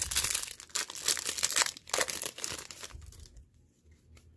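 Foil wrapper of a Yu-Gi-Oh! Speed Duel booster pack crinkling as it is torn open by hand, a rapid run of crackles that stops about three and a half seconds in.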